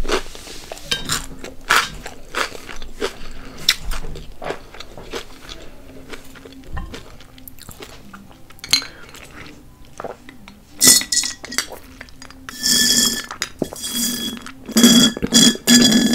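Close-miked chewing and small mouth clicks over the last bite of toast. From about eleven seconds in comes loud, repeated slurping through a straw as the last of a drink is sucked from the bottom of a small glass bottle. The bottle clinks now and then.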